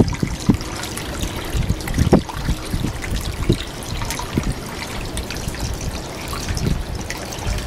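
Fresh water trickling from a boat's scupper and splashing onto a drinking manatee's snout and the water below, with irregular low splashes throughout.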